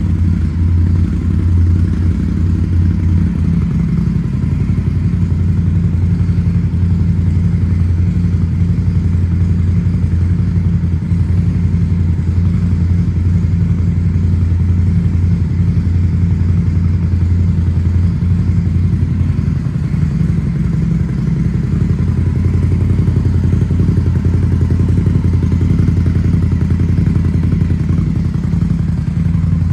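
Indian Scout Bobber's liquid-cooled V-twin running steadily at idle through aftermarket Shotgun exhaust pipes, a loud, even low exhaust note that holds at one engine speed throughout.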